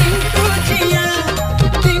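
Background music with a steady beat and a melodic line, in a Bollywood or folk style.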